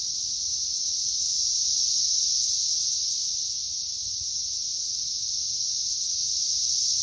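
Chorus of periodical cicadas swarming a tree: a steady, loud, high-pitched drone that holds without a break.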